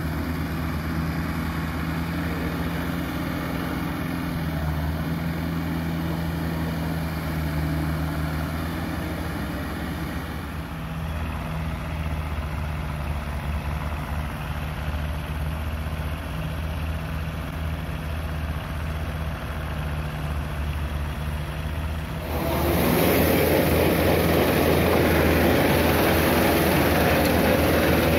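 Farm tractor engine running steadily while working a muddy paddy field. About two-thirds of the way through it becomes much louder and rougher, heard close up.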